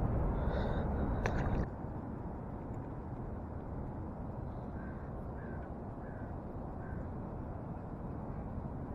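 A bird calling faintly four times in short, evenly spaced calls, a little past the middle, over steady open-air background noise. The first second and a half carries a louder low rumble that stops abruptly.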